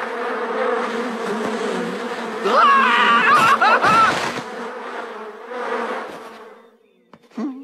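Swarm of bees buzzing in a steady drone, as a cartoon sound effect. About two and a half seconds in, a loud wavering, warbling high-pitched sound rises over the buzz for nearly two seconds, and the buzzing fades out near the end.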